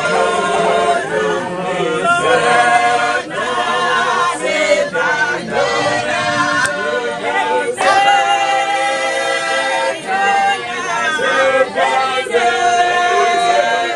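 A church congregation singing together without instruments, many voices at once.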